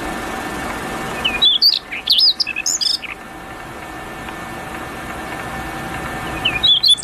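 A songbird singing two short phrases of quick whistled notes that slide up and down, the first about a second and a half in and the second near the end, over a steady background hum.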